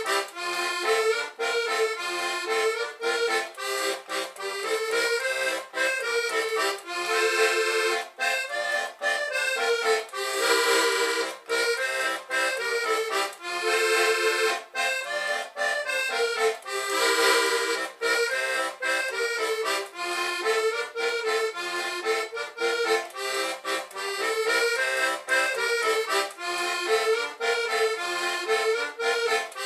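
Dino Baffetti diatonic button accordion (Portuguese concertina) playing a vira folk tune: a melody over a pulsing bass-and-chord accompaniment, with fuller chords swelling out a few times.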